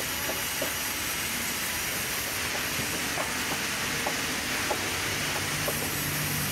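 Vertical band saw running and cutting lengthwise through a log, a steady hiss of the blade in the wood. A low hum joins near the end.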